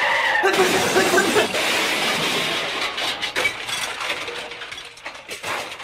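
Hissing clatter with scattered clinks and rattles that dies away steadily over several seconds, the tail of a crash right after a shouted warning.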